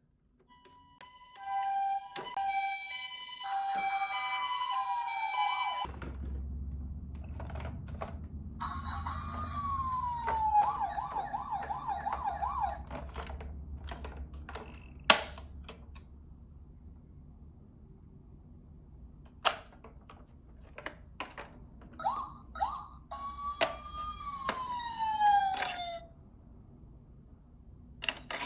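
Electronic sirens from toy ambulances: a two-note alternating ambulance siren, then a falling and warbling siren, and later another falling siren glide. Sharp clicks and knocks are scattered throughout, over a low steady rumble that starts about six seconds in.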